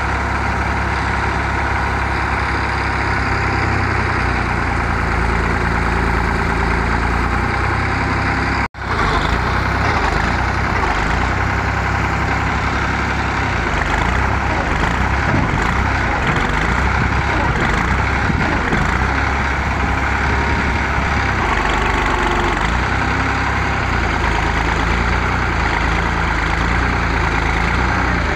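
New Holland 3630 tractor's three-cylinder diesel engine running steadily, with a momentary break in the sound about a third of the way through.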